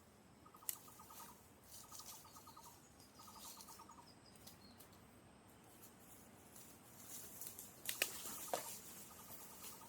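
A small animal's short pulsed trill, repeated about every second and a half, pausing midway and starting again near the end. Sharp knocks and rustles come in between, the loudest about eight seconds in.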